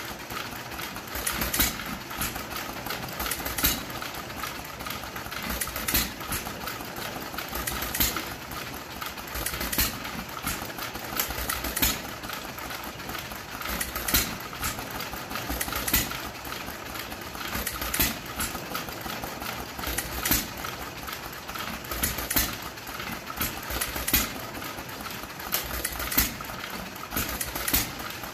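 Antique hit-and-miss stationary engines, a 2 hp Novo and a 1½ hp John Deere, running unloaded. A sharp firing bang comes about every two seconds over a steady mechanical clatter, as the governor skips firing strokes while the flywheels coast.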